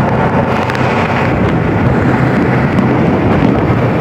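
Wind buffeting the microphone of a moving open vehicle, a steady rush of noise with a low, steady hum from the vehicle running along the road.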